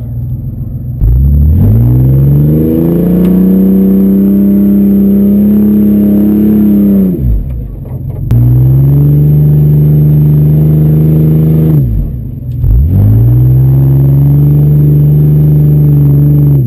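A vehicle engine revving loudly three times: each time the pitch climbs, holds high for three to four seconds, then drops away.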